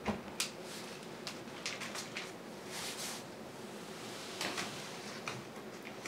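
Paper wrapping of a bagged fire log crackling and rustling as it catches alight, with irregular sharp crackles and clicks over a faint steady hiss; the loudest come near the start.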